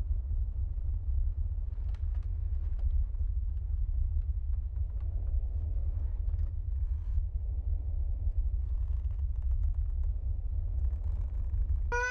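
Steady deep rumble with faint scattered clicks and rustles above it.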